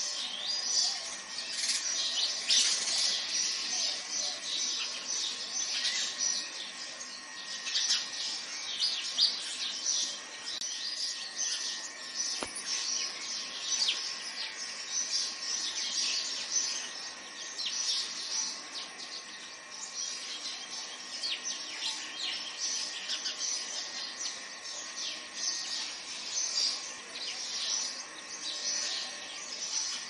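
A chorus of many small birds chirping and twittering without pause, dense overlapping short high calls.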